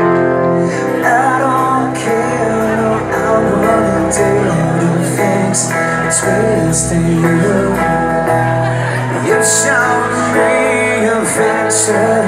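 Live rock band playing a song through a venue PA: electric guitar, bass and drums with regular cymbal strikes, and singing at times over the music.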